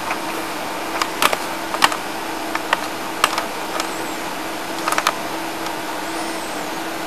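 Irregular clicking from working a computer, about a dozen short sharp clicks, some in quick pairs, over a steady low hum and hiss.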